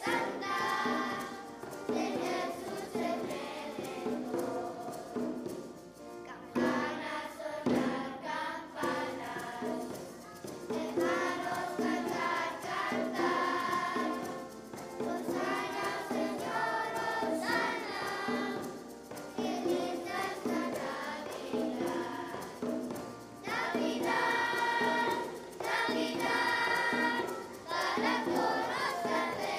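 Children's choir singing a song, growing louder about three-quarters of the way through.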